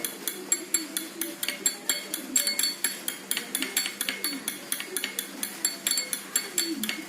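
A spoon stirring orange juice and honey, clinking rapidly and evenly against its container at about four to five clinks a second.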